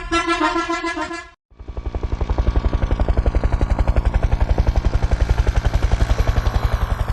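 A short horn blast that stops after about a second and a half, then, after a brief gap, a helicopter's rotor chop fades in and runs with a fast, even beat.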